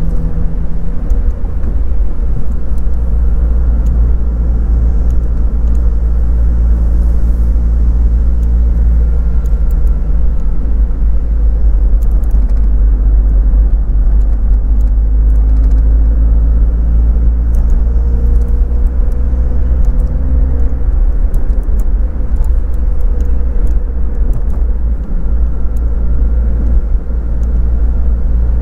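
Daihatsu Copen convertible on the move, heard from inside the car: steady low road and engine rumble at cruising speed, with the engine note shifting slightly about two-thirds of the way through.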